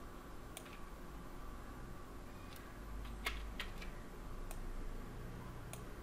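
Scattered computer mouse and keyboard clicks, about six short clicks, the loudest a little past three seconds in, over a faint steady low hum of room tone.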